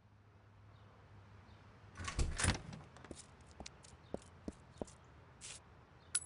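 Cartoon sound effects: a door closing about two seconds in, then a run of light clicks and taps over a low steady hum.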